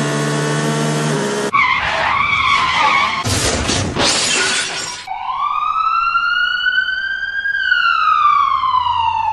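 A string of cartoon sound effects: a steady buzzing drone that cuts off after about a second and a half, a wavering screech, a loud noisy crash-like burst, then one long siren-like whistle that rises slowly and falls away.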